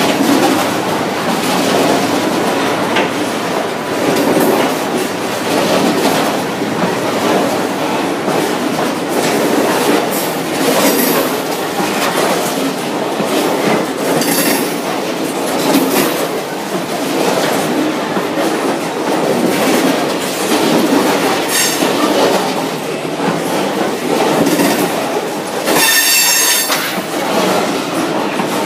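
A freight train of loaded bogie hopper wagons rolls past at speed with a steady rumble and the rhythmic clatter of wheels over rail joints. A high-pitched squeal rings out near the end.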